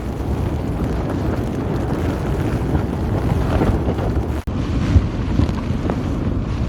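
Strong gusty storm wind buffeting the microphone, a heavy low rumble with uneven surges, broken once by a very brief dropout about four and a half seconds in.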